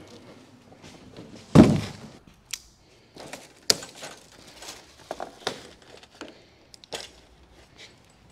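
Handling noise from a coiled, insulated copper line set being pulled off a mini split condenser on a wooden pallet. There is a heavy thump about a second and a half in, then scattered knocks, clicks and rustling of plastic wrap.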